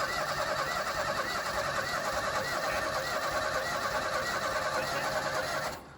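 Wood chipper's six-cylinder engine being cranked over by its electric starter without catching, a steady churning that cuts off suddenly near the end when the key is released. It is cranked to check for spark at a pulled plug held to ground.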